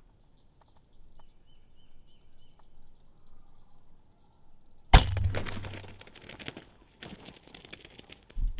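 A recurve bow shot about five seconds in: one sharp, loud snap of the string, followed by a flurry of crashing and rustling as the arrow-hit gobbler thrashes and flops in the brush, which starts again near the end.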